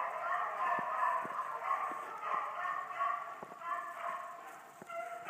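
A pack of beagles baying and yelping continuously on a rabbit's trail, several voices overlapping.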